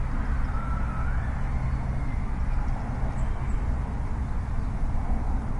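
Steady outdoor ambience: a low rumble under an even hiss, with a faint, brief rising whistle about a second in.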